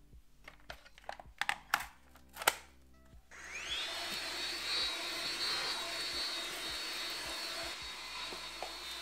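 Makita cordless vacuum: a few handling clicks and knocks, then it switches on about three seconds in. Its motor whine rises quickly to a steady high pitch and keeps running while it vacuums.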